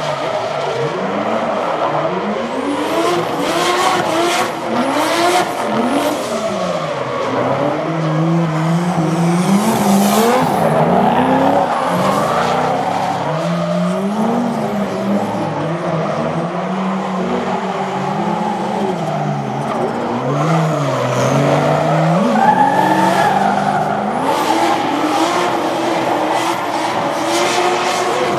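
Two drift cars in a tandem run, their engines revving up and falling back again and again as the drivers work the throttle through the slides, with tyres squealing on the tarmac.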